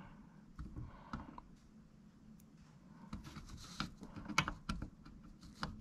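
Light clicks and taps of multimeter probe tips being set on and moved between transistor legs and solder joints on a circuit board, a scattering of them, most in the second half.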